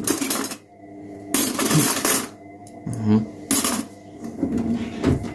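Metal cutlery clinking and rattling in a kitchen drawer organiser as a hand rummages through spoons, forks and knives, in several short bursts of clatter.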